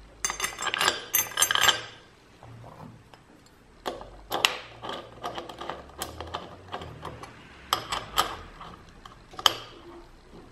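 Small metal bolts and clamp hardware clinking for the first two seconds, then scattered light clicks and taps as the bolts are set into the end-cap clamps and turned with an Allen key.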